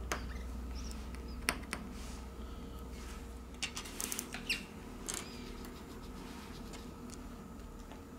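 Metal tweezers and small phone parts clicking and tapping lightly against the frame and board, about eight scattered ticks with a cluster a little after the middle, over a low steady hum.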